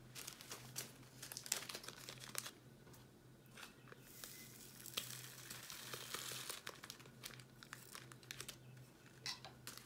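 Faint crinkling of small plastic drill bags, with light clicks and a patter of round diamond-painting drills being tipped from a plastic tray back into a bag, densest about halfway through.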